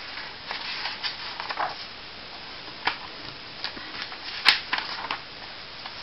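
Pages of a paper workbook being turned and handled: scattered paper rustles and light clicks, with one sharper snap of paper about four and a half seconds in.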